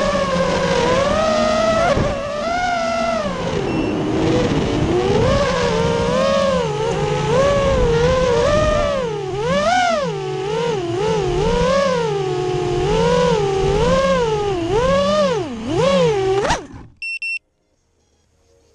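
FPV quadcopter's motors and propellers whining, the pitch rising and falling quickly with the throttle. The whine cuts off suddenly near the end as it lands, followed by two short electronic beeps.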